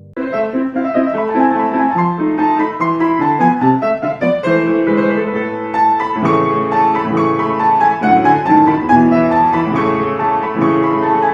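Piano music, a quick flowing run of notes that starts abruptly and plays on.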